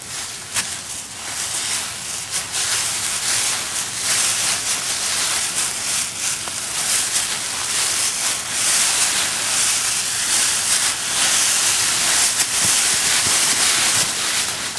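Dry fallen leaves rustling and crackling as they are dug through and flung aside by hand, a continuous crisp noise that grows louder about four seconds in.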